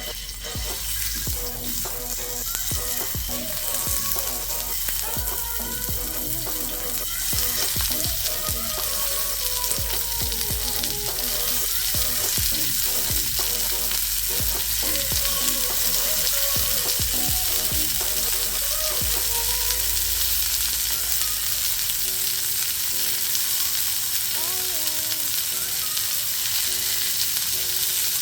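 Food sizzling as it fries, the sizzle growing louder about seven seconds in and then holding steady.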